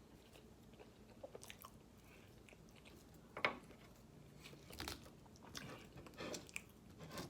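Close-up eating sounds: a person chewing and biting food, with scattered short mouth smacks and clicks. The sharpest crunch comes about three and a half seconds in.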